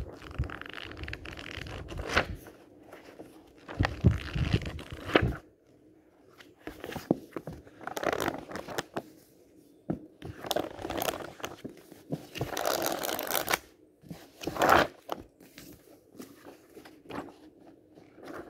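Pages of paperback books being riffled quickly, a papery flutter that comes in about six separate bursts of one to three seconds each, with short quiet gaps between them. A few sharp clicks come in the burst about four to five seconds in.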